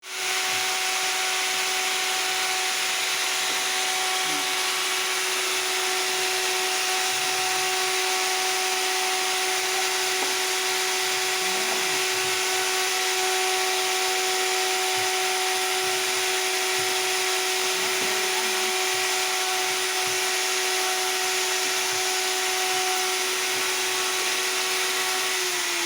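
Electric woodworking power tool running steadily at full speed with a high whine and heavy hiss, its pitch starting to drop right at the end as it is switched off and winds down.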